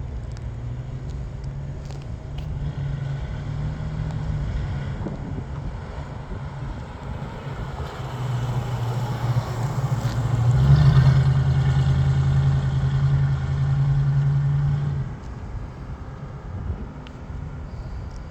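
1969 Ford Mustang's 302 V8 engine running steadily, growing louder about eight seconds in and settling back down about fifteen seconds in.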